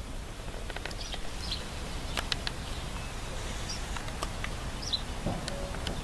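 Quiet outdoor ambience among grapevines: a steady low rumble with a few faint, short bird chirps and a few light clicks.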